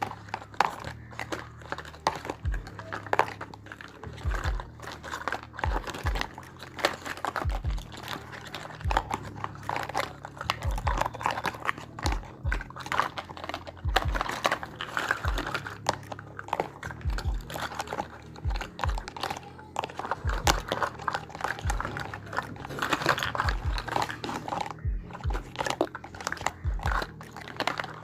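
Unboxing handling sounds: plastic packaging crinkling and small toy kitchen pieces clicking and tapping, with frequent dull thumps as items are set down.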